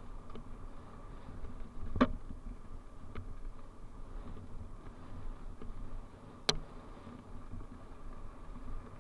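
Mountain bike rolling along a dirt singletrack: steady tyre rumble and rattle from the bike, with two sharp knocks, about two seconds in and again about six and a half seconds in.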